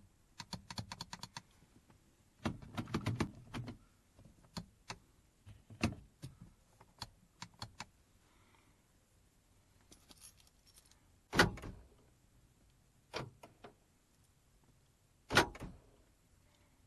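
Keys jangling and clicking at the PT Cruiser's driver door while the power door lock is tried, with two sharp, louder clunks in the second half. The failing lock actuator isn't making its usual loud noise at this moment.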